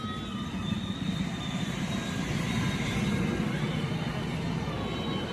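A motor vehicle engine running with steady rumble, growing a little louder around the middle.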